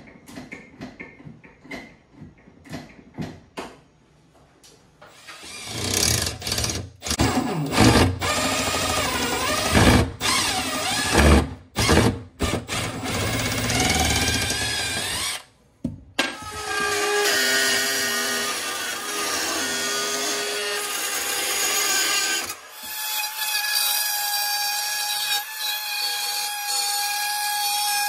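A power tool working on cabinet wood: a few light taps, then the tool runs in short stop-start bursts with shifting pitch. About halfway through it settles into a steady run with a steady high whine, which shifts to a higher steady pitch a few seconds later.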